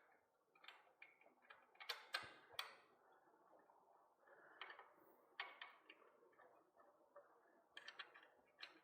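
Faint, irregular light clicks and taps of small parts and tools being handled while working on a bicycle frame.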